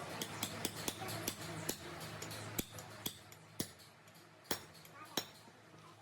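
Light metal-on-metal taps and clicks from work on machine parts, irregular and quick at first, then fewer and further apart, over a low steady hum that fades about halfway through.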